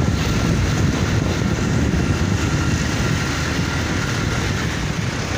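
Steady road noise of motorcycle engines and street traffic, with a heavy low rumble from wind on the microphone. A faint steady whine fades out about four and a half seconds in.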